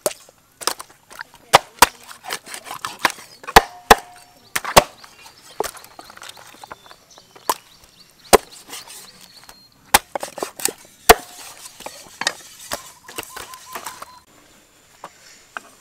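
Steel cleaver chopping a whole fish into chunks on a round wooden chopping block: an irregular run of sharp chops, some loud, each blow going through the fish into the wood. The chopping stops about a second and a half before the end.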